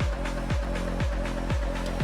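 Electronic background music with a steady kick drum, about two beats a second.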